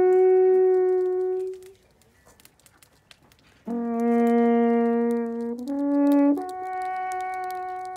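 Alphorn playing long held notes. The first note dies away about two seconds in. After a short pause a low note enters, steps up twice and holds the top note.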